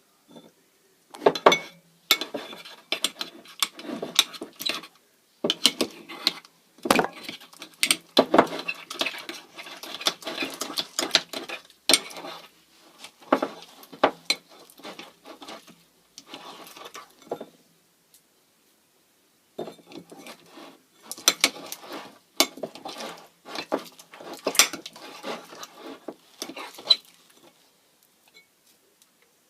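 A spoon clinking and scraping against a bowl while slime ingredients are stirred, in runs of quick clicks. It pauses for about two seconds midway and stops near the end.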